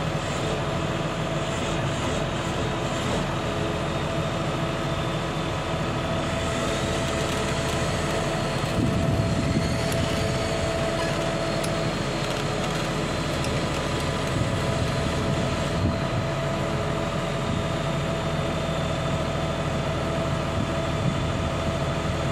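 Diesel engine of an XCMG horizontal directional drilling rig running steadily as the rig moves along on its crawler tracks, with a steady whine over the engine note and a slight rise in level about nine seconds in.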